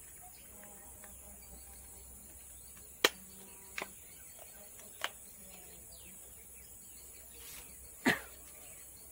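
A few sharp clicks and taps from a smartphone in a protective case being handled, the loudest near the end, over a quiet background with a faint steady high-pitched drone.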